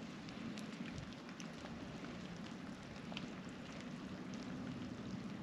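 Light cold rain falling: scattered drops ticking over a steady soft hiss.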